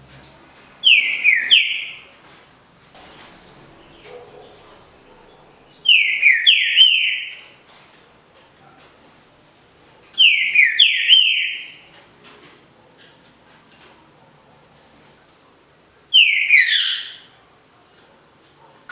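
Green-winged saltator (trinca-ferro) singing the Paraná 'canto liso' song type. It gives four short, loud phrases of rapid down-slurred whistled notes, one every four to five seconds. Faint high ticks fall in the pauses.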